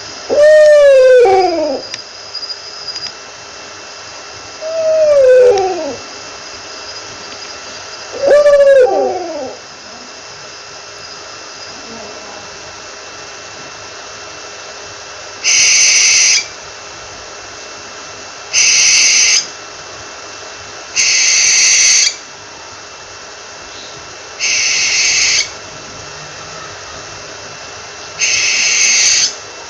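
Owl calls: three loud, arching calls that rise and then fall in pitch, each about a second and a half long, then five harsh screeches of about a second each, spaced about three seconds apart, over a steady background hiss.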